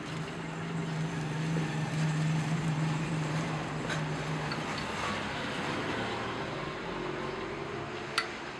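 Steady low motor hum over background noise, fading out about halfway through, with one sharp click near the end.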